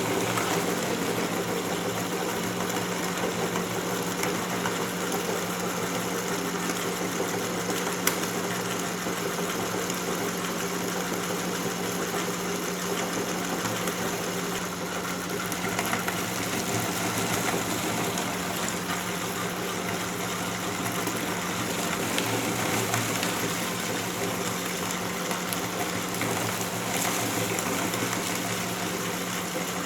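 Electric meat grinder motor running steadily with a low hum while grinding popcorn, with one sharp click about eight seconds in.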